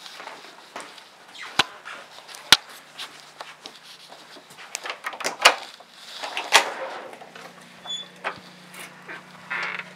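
A house door being unlocked and opened: several sharp clicks and knocks from the lock and latch, with rustling and footsteps between them.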